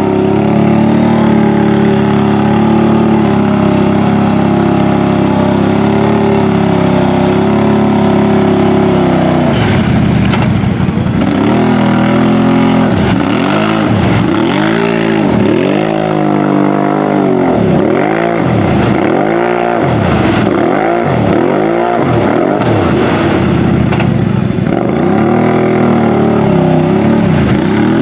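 Lifted mud ATV's engine running at high revs while its tyres churn through deep mud, the machine bogged in the hole. From about ten seconds in, the engine is revved up and let off over and over, roughly once a second, as the rider tries to rock it free. Near the end it settles back to a steady high pitch.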